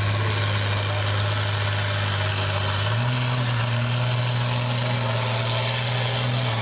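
International Harvester pulling tractor's diesel engine running flat out under full load as it drags a weight-transfer sled, a loud steady drone that steps up in pitch about halfway through, with a faint high whine rising slowly above it.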